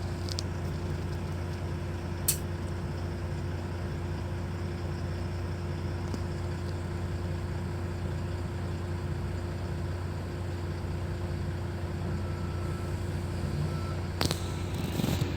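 Steady low drone of a heavy engine and machinery running at an even pitch, with a faint steady tone above it. There is a single sharp click about two seconds in.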